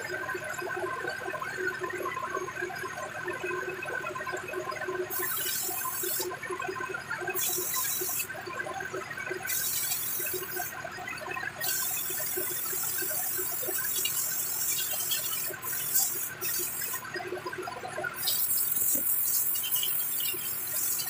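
Hose-fed spray gun hissing in repeated bursts, starting about five seconds in; the bursts run about a second each at first, then grow longer, with short gaps between them.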